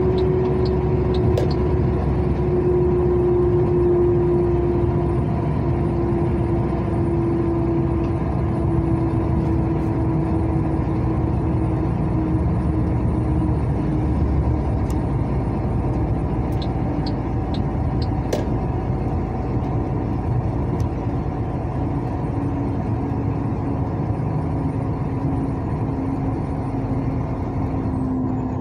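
Steady engine and road noise of a vehicle cruising on a highway, heard from inside, with a droning hum that slowly falls in pitch.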